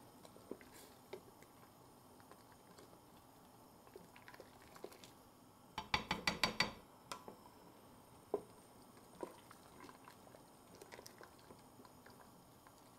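A spoon stirring soup in a stainless steel stockpot, clinking faintly against the pot now and then, with a quick run of about six clinks about six seconds in.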